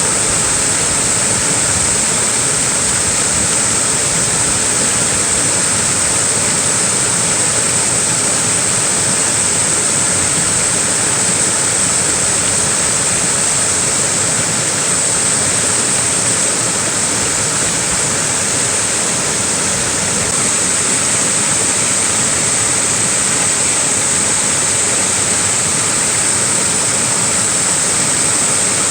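Small waterfall pouring steadily: an even, unbroken rush of falling water with a strong high hiss.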